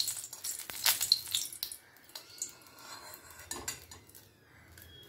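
Metal spatula clinking and scraping against an aluminium kadai while dried red chillies sizzle in hot oil. The clatter and sizzle die down after about two seconds, leaving a few light knocks and a faint sizzle.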